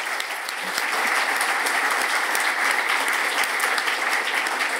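Audience applauding, a dense steady clatter of many hands clapping that builds over the first second and then holds.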